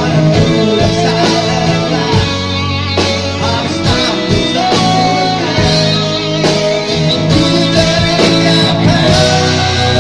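Rock music: a guitar-led band playing over a steady drum beat.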